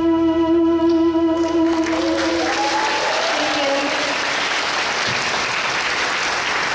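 The song's last held chord rings for about the first second and a half, then the audience breaks into applause that carries on steadily.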